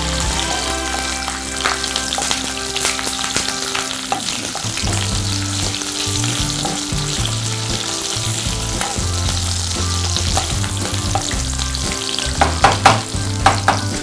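Green chillies and curry leaves sizzling in hot oil in a non-stick kadai while a wooden spoon stirs them, a steady frying hiss. Near the end come a few sharp knocks of the spoon against the pan.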